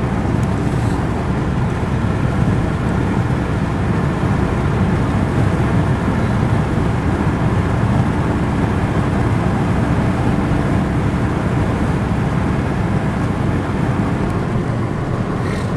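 Steady road and engine noise inside a moving car, a low, even rumble that holds without change.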